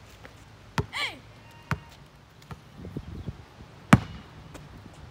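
A basketball bouncing on a concrete driveway: a few separate sharp slaps, the loudest about four seconds in. A brief pitched cry comes about a second in.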